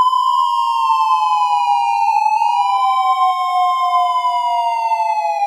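Police car siren sounding a slow wail: two tones that slowly rise and fall out of step with each other, crossing back and forth.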